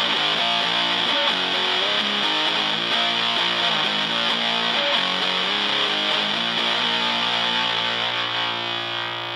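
Electric guitar (Fender Stratocaster) played through a hand-wired silicon Zuf Face fuzz pedal, a modified Fuzz Face, with its fuzz control at maximum, into a Fender Blues Junior amp: a heavily fuzzed riff of changing notes, then a held chord that slowly fades near the end.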